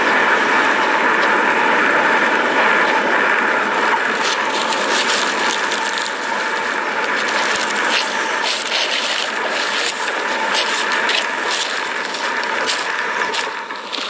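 Erupting lava fissure venting with a steady rushing noise, with many sharp crackles and pops from about four seconds in.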